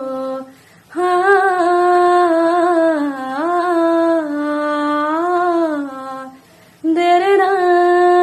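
A woman singing unaccompanied, in long wordless melodic phrases, humming or held vowels, with brief breaths between them.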